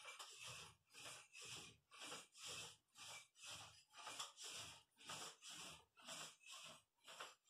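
Paint roller being rolled up and down a wall in steady, even strokes, about two a second, each a soft swish.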